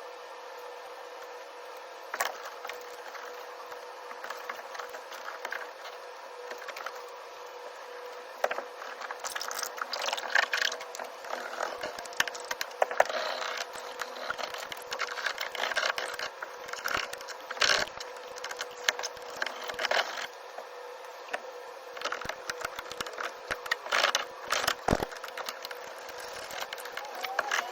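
Irregular crackling, clicks and knocks of sound-deadening sheets being handled and pressed into place, growing busier about a third of the way in, over a steady faint hum.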